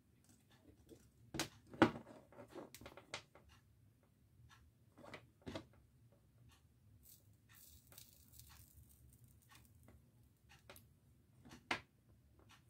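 Small clicks and knocks of a wire, a tin and a soldering iron being handled on a workbench, scattered and sparse, the loudest about two seconds in. A brief faint hiss comes around the middle.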